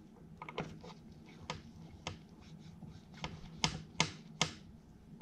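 Light metal clicks and taps as a valve lifter is fitted by hand into its bore in a Farmall H engine block, with three sharper clicks in quick succession past the middle.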